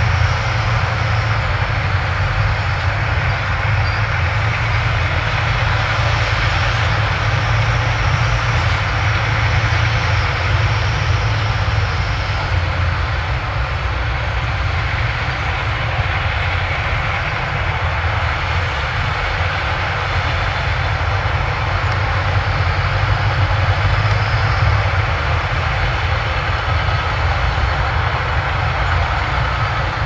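Heavy diesel earthmoving machinery, a bulldozer at work, running steadily: a continuous low engine sound with a broad mechanical noise above it.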